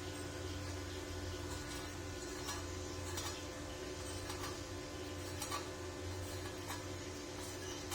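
Steady electrical hum from a stick-welding machine, with irregular light ticks roughly once a second.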